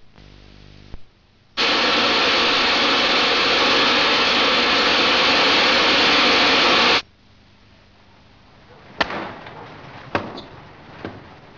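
A loud, steady rushing noise like static that starts and stops abruptly and lasts about five seconds. A few sharp knocks follow near the end.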